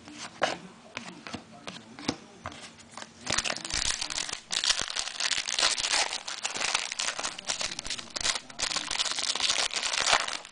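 Plastic trading-card wrapping crinkling as it is handled: a few light ticks at first, then dense crinkling and rustling from about three seconds in.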